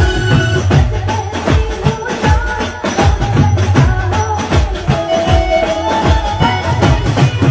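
Hindi love-song ringtone music: a melody over a held bass line, with a steady beat of light percussion.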